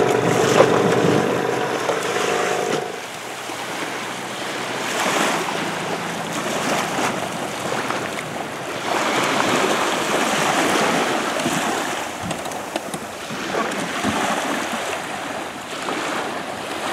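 Small Mercury outboard motor on a dinghy running steadily for about the first three seconds, then wind noise on the microphone and water sounds that rise and fall.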